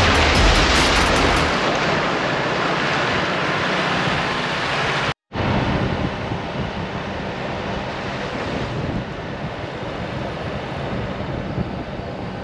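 Steady rushing noise of a 4WD driving along a dirt trail, tyre and wind noise with the engine under it. Background music fades out about a second and a half in, and the sound cuts out abruptly for a moment about five seconds in.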